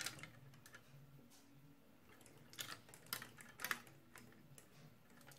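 A handful of faint plastic clicks and taps as the wings of a large Perfect Effect Psychro Knight figure are handled and adjusted; most of them come in a cluster a few seconds in.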